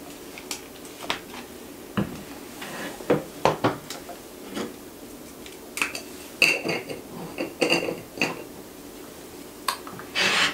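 Camera gear being handled: a lens twisted off a Nikon Z6 mirrorless body and the pieces put down, giving scattered clicks, light knocks and a few short metallic clinks.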